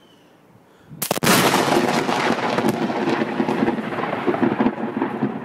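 Close lightning strike: a sudden, very loud thunder crack about a second in, a second crack right after it, then a long crackling rumble.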